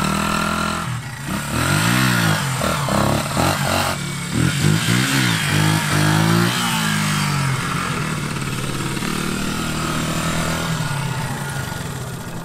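A 1980 Honda XR80's small four-stroke single-cylinder engine being revved hard in several short bursts, its pitch rising and falling each time, as the throttle is wrung out to lift the front wheel in wheelies. After about six seconds it settles into a steady note.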